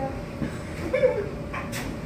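Laundry machine running: a steady hum with a low rumble underneath.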